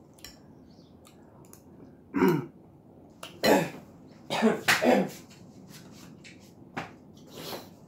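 A man coughing hard several times and clearing his throat, choking on a mouthful of soup that has caught in his throat.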